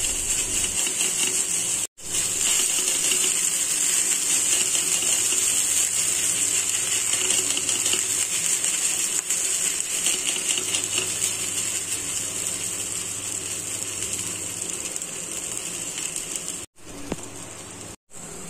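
Sago-and-potato roti dough sizzling steadily on a hot tava as it is patted flat and cooks. The sizzle comes back quieter after a short break near the end.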